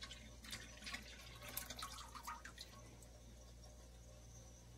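Gelatin finings poured from a glass into beer in a fermenter: faint trickling and small splashes that die away under three seconds in.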